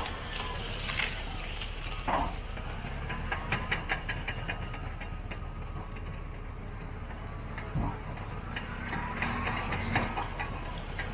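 Caterpillar D6T XL bulldozer working brush: a steady diesel engine drone with bursts of rapid clanking and cracking from its tracks and the brush it is pushing through.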